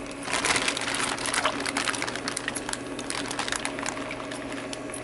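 Aquarium water sloshing and trickling as a hand moves through it around a floating plastic bag: a dense run of small splashes and drips over a steady low hum.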